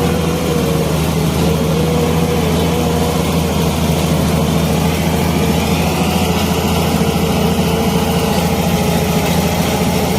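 Heavy engine running steadily at idle, cutting in abruptly.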